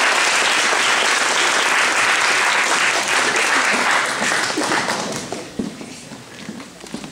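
Audience applauding, dense clapping that fades out about five seconds in.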